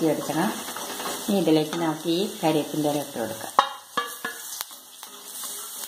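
A wooden spatula stirs onions, green chillies and spices frying in oil in an aluminium kadai, with a light sizzle. There are a few sharp knocks of the spatula on the pan a little past halfway. A person's voice is heard over the first half.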